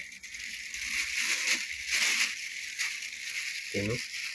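Pliers scraping and crunching against a locking clip on a washing machine's plastic spin-motor mount as the clip is pressed into place. The rough noise swells about one and two seconds in.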